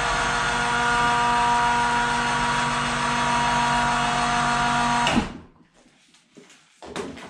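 Electric winch on a garage snowmobile storage lift running steadily with a constant motor hum and whine, then cutting off suddenly about five seconds in. A few faint knocks follow.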